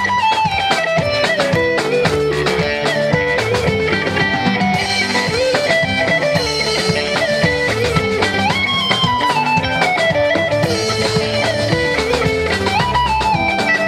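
Instrumental electric guitar music: a lead melody with sliding, bending notes over a steady low backing, playing without a break.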